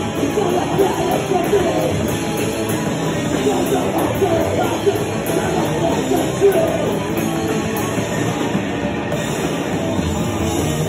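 Live heavy rock band playing loud, steady: a full drum kit, electric guitar and a vocalist shouting into a microphone.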